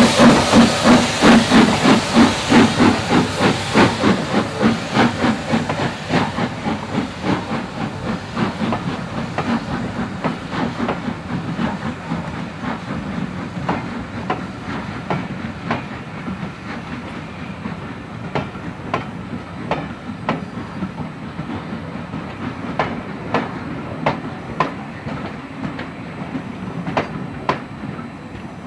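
Steam locomotive pulling away, its exhaust beats and steam hiss loud and rhythmic at first, about three to four beats a second, fading steadily as it goes. Later, train wheels click over rail joints with a low rolling rumble as the coaches pass.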